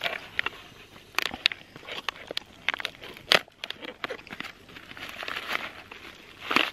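Gilde Turmat freeze-dried meal pouch being torn open at its tear strip and pulled apart by hand, the pouch material crinkling and crackling in quick irregular bursts, with a sharper crackle about halfway through.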